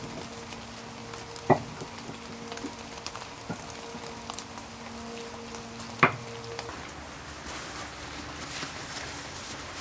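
Split firewood pieces being knocked together and set down in a steel fire pit: a few sharp wooden knocks, the loudest about a second and a half and six seconds in, with lighter clatters between. A faint steady hum runs underneath until about two-thirds of the way through.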